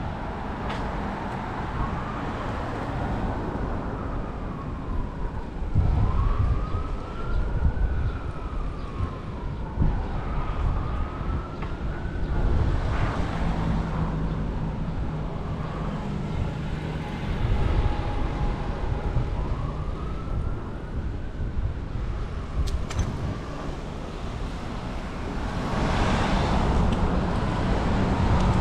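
An emergency vehicle siren wailing, rising and falling in pitch about every two seconds, over steady wind and road rumble on the microphone. The siren fades out a few seconds before the end, as the wind rumble grows louder.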